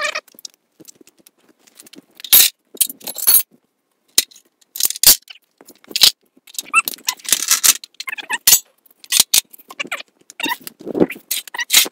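Scattered metal clicks, clanks and short scrapes as QuickJack portable lift frames are handled and slid into place on the concrete floor, with quiet gaps between.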